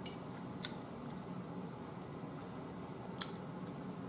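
Faint, close chewing of soft food (eggplant dressing and corn), with a few light clicks from the fork scooping on the plate.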